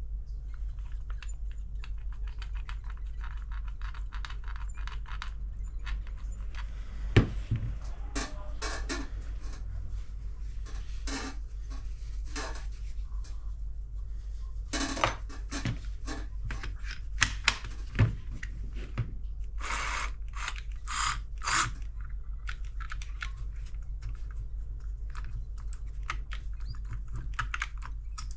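Small clicks and rattles of plastic and metal parts as the opened Bosch cordless jigsaw's mechanism is handled, with a few sharper knocks, over a steady low hum.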